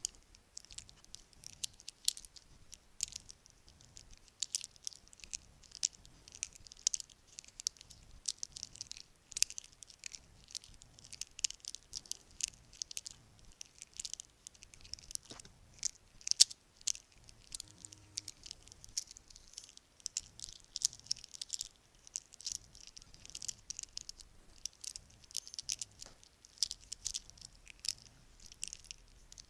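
Bracelets handled close to the microphone, clinking and rattling in a dense, irregular stream of small sharp clicks.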